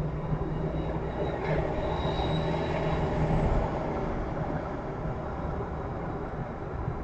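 Steady road and engine noise of a moving car, picked up by a dashcam inside the cabin, with a constant low hum. A faint thin high whine comes in about two seconds in and fades a second or so later.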